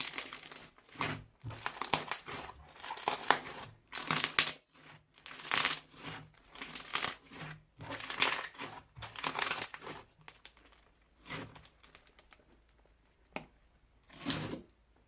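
Crunchy bead-filled slime being squeezed, giving bursts of crackling about once a second that grow sparser and fainter over the last few seconds.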